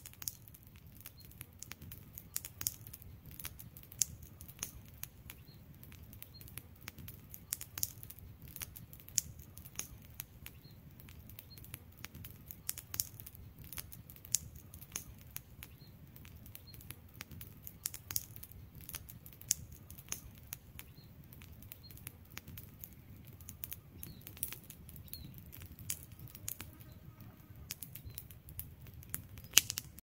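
Wood campfire crackling, with irregular sharp pops and snaps over a low steady rumble.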